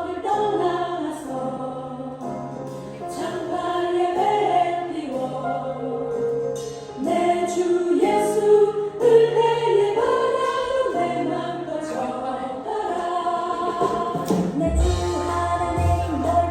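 Christian worship song: a choir sings a flowing melody over accompaniment, and a low bass beat comes in near the end.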